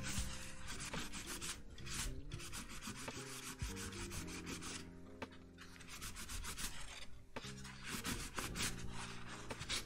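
Folded paper towel rubbing Brasso polish over a small brass plate: quick repeated scrubbing strokes, with faint background music under them.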